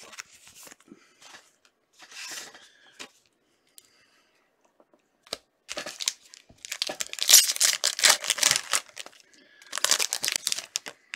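A trading-card pack wrapper being torn open and crinkled by hand, in two long bouts: a louder one about halfway in and a shorter one near the end. Light rustling of handled cards comes before.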